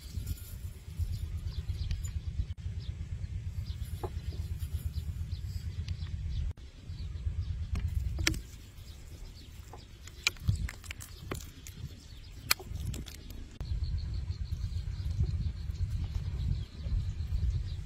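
Wind buffeting the microphone: a low, fluttering rumble that eases off for a few seconds in the middle, with a few sharp clicks scattered through.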